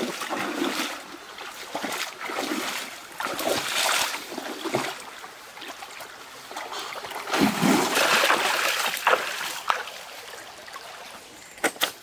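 Water splashing with each step as a person wades through a shallow stream, in irregular surges over the running water. A few sharp clicks come near the end.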